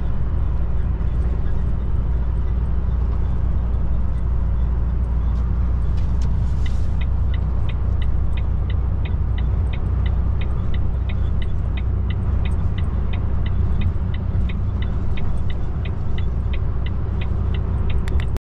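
Steady low drone of a Volvo truck's engine and road noise, heard inside the cab at highway speed. From about six and a half seconds in, a regular light ticking joins, about three ticks a second, and stops near the end.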